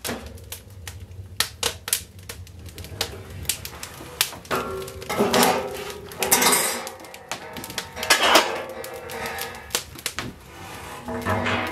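Steel parts of a barrel wood stove clanking and scraping as its cooktop plate and frame are lifted off and handled, many sharp metal knocks with some ringing.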